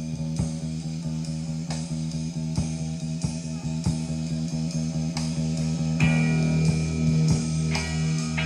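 Psychedelic post-punk rock recording: electric guitar and bass over a steady low drone, with evenly spaced picked notes. About six seconds in it gets louder and fuller, and a high held tone joins.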